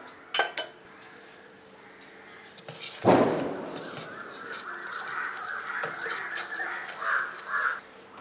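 Wooden spatula stirring hot jaggery syrup in a stainless steel pot, with a sharp clink about half a second in and a loud knock about three seconds in as the stirring starts.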